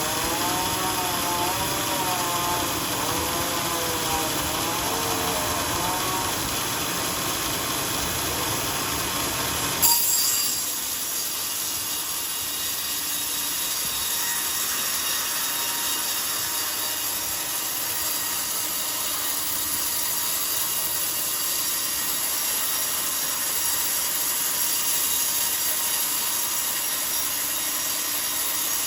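Sawmill bandsaw cutting a coconut-palm log, a steady whine of the blade through the wood. About ten seconds in a sharp knock, and the sound changes to a lighter, higher hiss as the lower rumble drops away.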